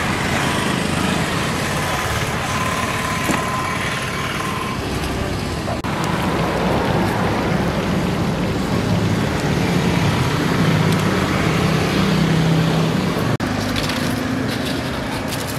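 Roadside traffic noise: motor vehicles running and passing on a busy street, with a low engine drone swelling in the middle.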